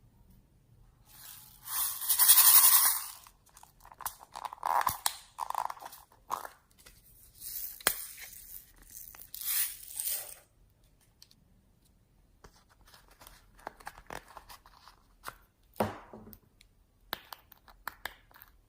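Slime being worked by hand, crackling and tearing as it is stretched and pulled apart, in several bursts. The loudest comes about two seconds in, followed by softer crackles and clicks.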